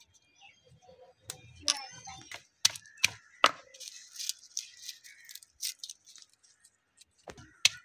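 Dry papery onion and garlic skins crackling and rustling as they are peeled off by hand, with scattered sharp clicks. Near the end a quicker run of sharp clicks begins.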